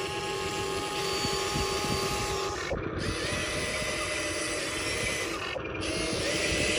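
RC excavator's electric motor and hydraulic pump whining steadily over a rattling rumble. The whine breaks off briefly twice and comes back at a different pitch each time.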